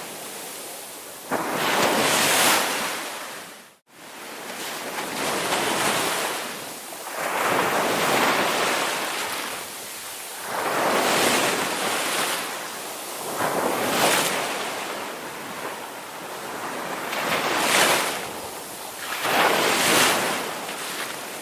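Ocean surf breaking on a beach, the rush of each wave swelling and fading every few seconds. About four seconds in the sound cuts out for a split second.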